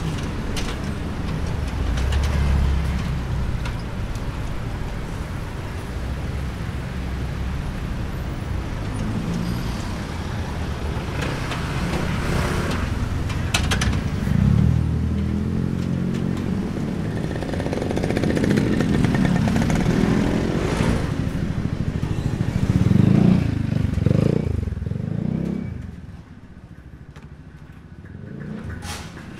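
Street traffic: motorcycles and cars running and passing, with a steady engine din. Louder passes come about halfway and two-thirds of the way in, and it grows quieter over the last few seconds.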